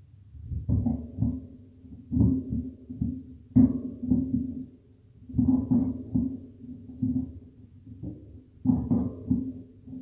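Irregular clusters of dull, low knocks and thumps, one group every second or two, over a faint steady low hum.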